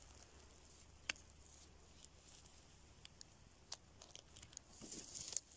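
Faint crackle and a few small, sharp snaps of moss, needles and twigs as a hand works a young mushroom loose from the forest floor.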